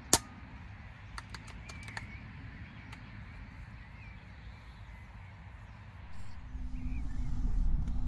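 Field ambience with faint bird calls, broken right at the start by one sharp click, the loudest sound here. A few fainter ticks follow over the next couple of seconds, and a low rumble builds from about six seconds in.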